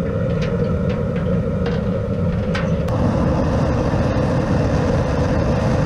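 Propane boil burner running with a steady low rumble under a large aluminum stock pot. There are a few light metal clinks in the first three seconds, and about three seconds in the burner noise gets louder and hissier.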